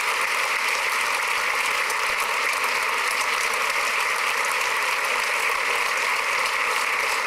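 A large crowd applauding: dense, steady clapping that keeps going without a break.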